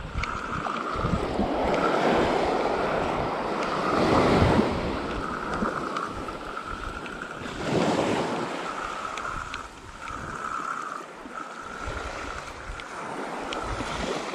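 Small waves washing and breaking on a sand beach, swelling a few times, with wind on the microphone. Over it, a spinning fishing reel whirrs in repeated bursts of about a second as a lure is wound in.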